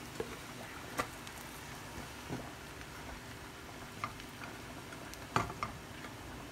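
Marinated chicken pieces sizzling quietly in hot oil in a pot, with a handful of sharp pops and clicks at uneven intervals.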